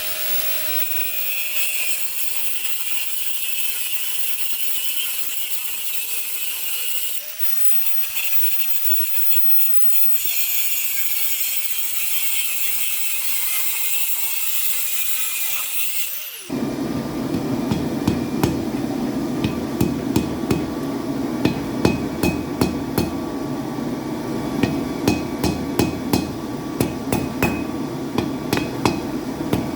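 A steady high hiss for the first half. It cuts off abruptly and gives way to repeated hammer blows on steel at an anvil, about two strikes a second, over a steady low rumble.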